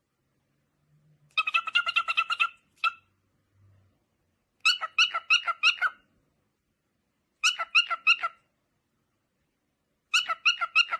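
An animal's rapid, repeated high-pitched calls, coming in four quick bursts of several notes each, with silence between the bursts.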